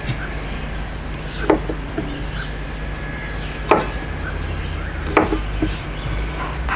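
A chef's knife cutting radishes on a wooden cutting board: three separate knocks of the blade on the board, a second and a half to two seconds apart.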